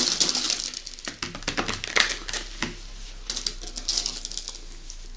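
Skittles Chewies candies clicking and rattling against a paper plate as fingers push and pick through them, in quick irregular taps that thin out toward the end.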